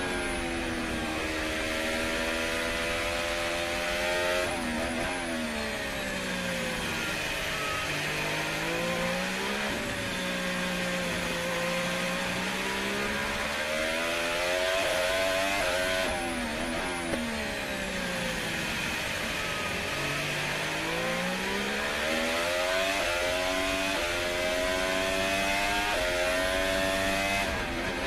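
Onboard sound of a 2015 Lotus E23 Formula One car's Mercedes 1.6-litre turbocharged V6 hybrid engine at race speed. The revs climb and fall again and again as it brakes into corners and accelerates out, with quick gear changes and a run of upshifts near the end.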